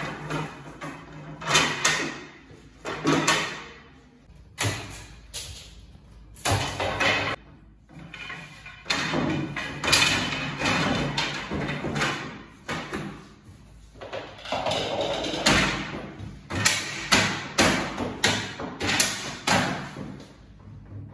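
Irregular knocks, thuds and scraping of the wooden parts of an IKEA Malm bed being handled and fitted together during assembly.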